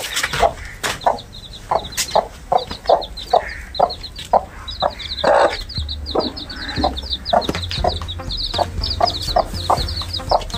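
Broody desi hen clucking in a steady run of short clucks, about two to three a second, with one longer, louder call about halfway, while her chicks peep high and almost without a break. It is the defensive clucking of a mother hen guarding her chicks from a person coming close.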